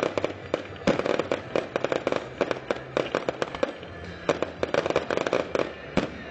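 Fireworks bursting and crackling: rapid, irregular sharp cracks and pops, several a second, with a last loud crack near the end.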